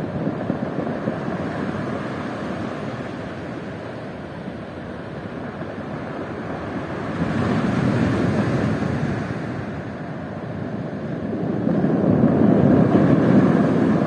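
Atlantic surf washing onto the shore in a steady rush that swells twice, about seven seconds in and again near the end, as larger waves break.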